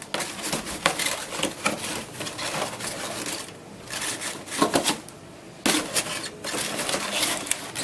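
Cardboard being handled: a folded shelving insert scraping and rubbing as it is pushed into a cardboard counter display box, with light knocks and clicks and two short lulls a little past the middle.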